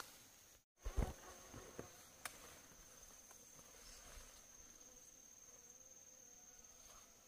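An insect trilling steadily on one high note, starting about a second in. A single thump at its start, then a few light clicks and rustles.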